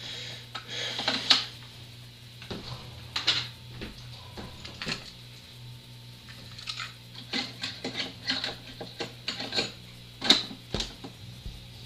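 A dozen or so irregular light clicks and clinks over a steady low hum.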